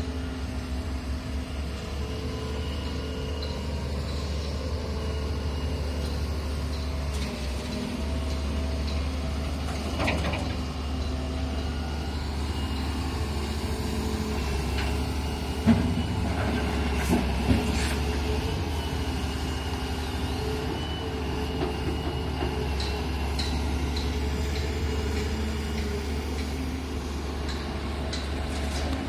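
Doosan excavator's diesel engine running steadily, with a few sharp knocks along the way, the loudest about halfway through.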